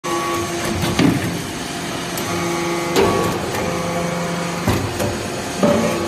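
Hydraulic metal chip briquetting press working, its hydraulic drive humming with steady tones that shift in pitch as the ram cycles, and four sharp clanks as it presses chips and handles the briquettes.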